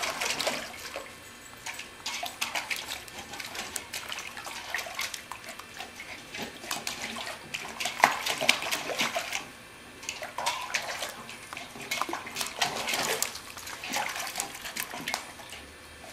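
Border collie puppy pawing and splashing at the water in a stainless steel bowl: irregular splashes and slaps of water, with a brief pause about two-thirds of the way through.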